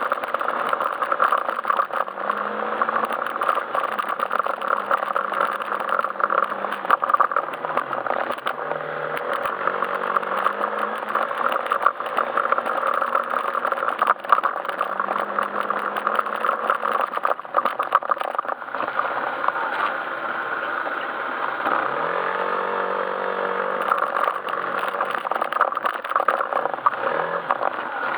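Yamaha Majesty S scooter's single-cylinder engine running on the move, its pitch holding steady and then dropping and rising again a few times as the throttle changes, over a constant rattle and clatter.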